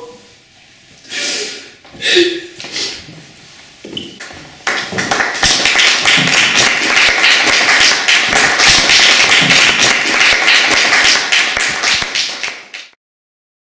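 Audience applauding at the end of a performance, starting about five seconds in and cut off suddenly near the end.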